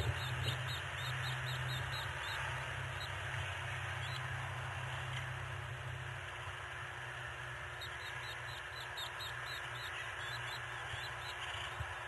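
Two runs of rapid, short, high bird calls, one at the start and one from about two-thirds of the way in, over a steady low hum and hiss from the nest camera's microphone.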